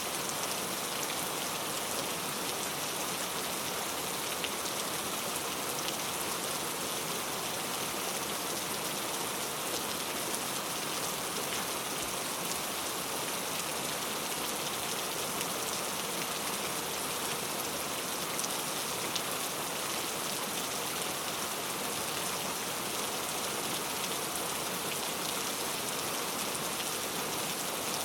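Heavy rain falling steadily: a dense, even hiss with fine scattered drop ticks and no thunder.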